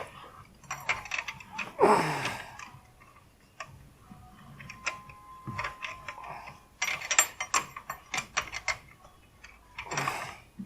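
Metal wrench clicking and clinking on engine fasteners as it is fitted and refitted in a cramped spot, in irregular bursts of quick clicks.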